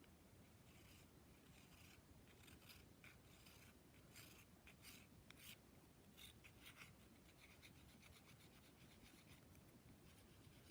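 Nail file stroked across a Senegal parrot's beak: faint, short, irregular scratches, several close together in the middle.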